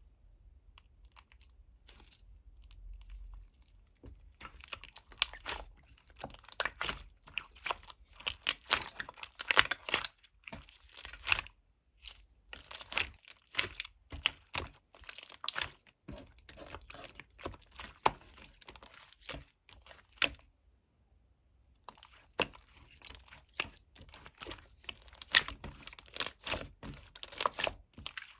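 Crunchy crackling and crinkling in quick, irregular bursts of clicks. It stops for about a second and a half roughly two-thirds of the way through, then starts again.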